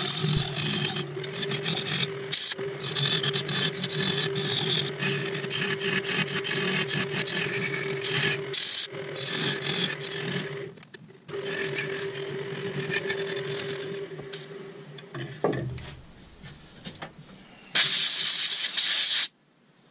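Nova DVR Saturn wood lathe running with a resin-and-wood pot held on a jam chuck, a gouge scraping and cutting away the tenon, while a steady tone sounds throughout: the peculiar noise this jam chuck makes, cause unknown to the turner. The lathe stops about 15 seconds in, and a loud rushing noise follows near the end.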